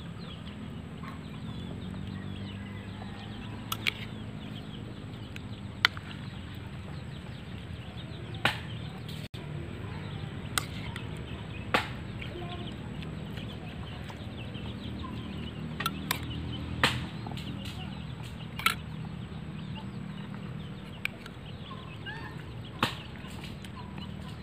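Chickens clucking in the background over a steady low hum. A metal spoon clinks sharply against the bowl and the fish about eight times, every few seconds, while stuffing is spooned in.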